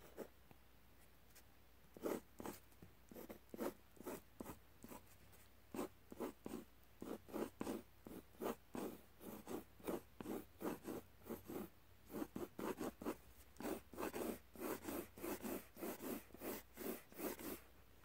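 Pencil scratching on paper in short, quick hatching strokes, starting about two seconds in and coming faster toward the end.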